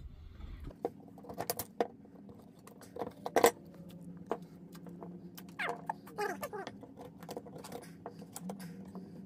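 Scattered light clicks and taps of a knife working on a coconut on a cutting board, a few in quick clusters, over a faint low hum. Faint speech in the background about halfway through.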